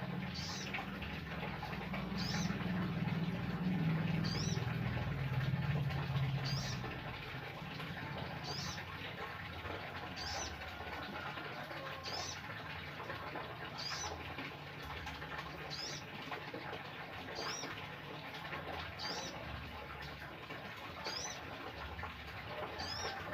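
Male sogon bird calling: a short, high, upward-sweeping note repeated about every two seconds. A deeper, louder low sound runs from about two to seven seconds in.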